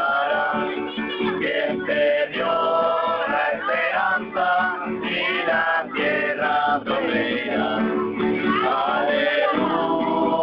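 Young men singing together to acoustic guitars.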